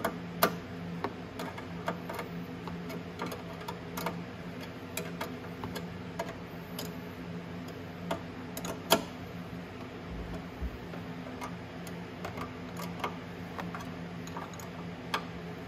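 Small metal clicks of a ratchet wrench tightening the mounting nuts on a motorcycle's voltage rectifier, irregular and a few to the second, with two louder clicks. A steady low hum runs underneath.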